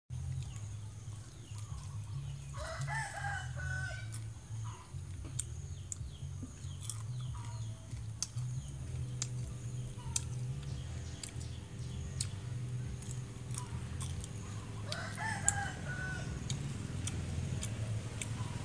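A rooster crows twice, about twelve seconds apart, over a steady low hum. Short clicks are scattered throughout, and a faint steady drone joins about nine seconds in.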